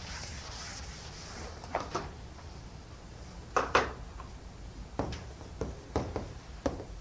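A handful of light knocks and clicks at irregular intervals, the loudest a close pair about halfway through, over a low steady room hum.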